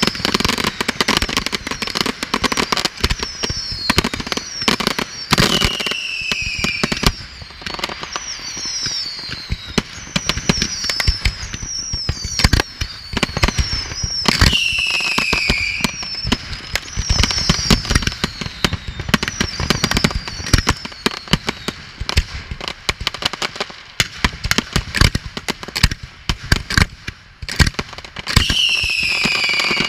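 Fireworks display: dense, continuous bangs and crackling from bursting aerial shells and ground-fired mines, cut through by repeated falling whistles.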